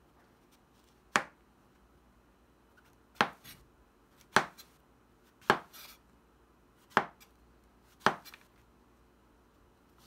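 Chef's knife slicing button mushrooms on a plastic cutting board: six separate sharp knocks of the blade against the board, one to two seconds apart, several followed by a softer brush as the slices fall over.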